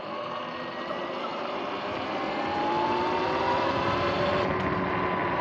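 Electric dirt bike's motor whining, rising in pitch and getting louder as the bike speeds up, then holding steady, over a rush of wind and road noise.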